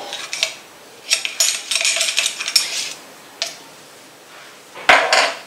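Metal kitchen utensils and cookware clinking and scraping in a run of quick bursts during the first few seconds, then one louder clatter near the end.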